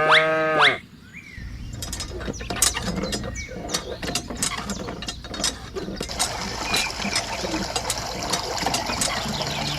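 A pitched sound with rising glides ends within the first second, followed by a run of irregular sharp mechanical clicks and rattles, with a steady hiss building up from about six seconds in.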